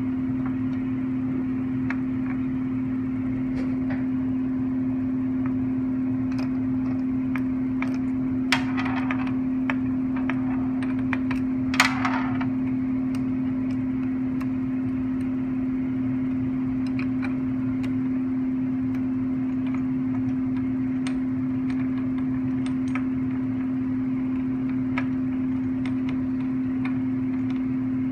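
Harbor Freight 7x10 mini lathe running: a steady motor hum, with scattered light ticks and two brief louder noises, about eight and a half and twelve seconds in.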